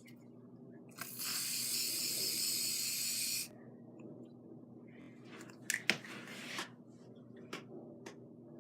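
Aerosol can of Gillette shaving cream spraying foam in one steady hiss lasting about two and a half seconds, followed by a few light clicks and knocks.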